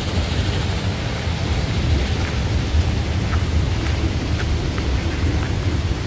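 Wind buffeting the microphone of a handheld camera carried by someone walking, a steady low rumble with faint ticks.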